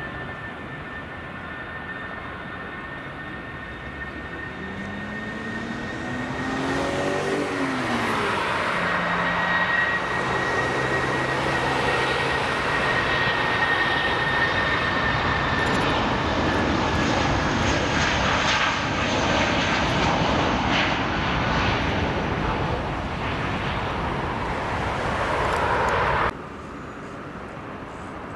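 Airbus A319's twin IAE V2500 jet engines spooling up for takeoff: a steady high whine that swells into a loud, sustained engine roar from about a quarter of the way in, cutting off suddenly near the end to a quieter engine hum. A wasp buzzes near the microphone partway through.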